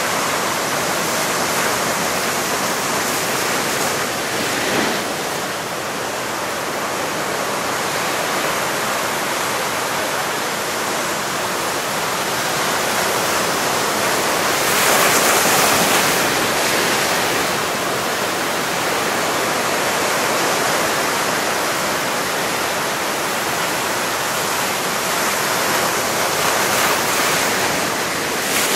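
Sea surf breaking and washing over rocks: a steady rush of white water, swelling louder about halfway through as a bigger wave breaks.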